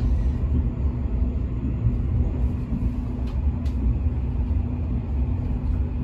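485-series electric train running at speed, heard from inside the carriage as a steady low rumble with a constant hum, and two faint ticks a little past halfway.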